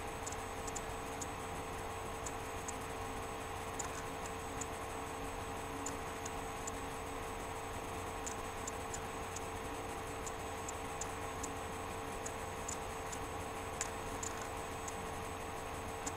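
Steady electrical hum with faint, irregularly spaced small ticks, about one to three a second.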